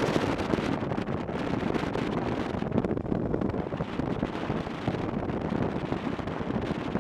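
Wind rushing over the microphone of a moving motorcycle, a steady noise that flutters constantly, with the running motorcycle underneath it.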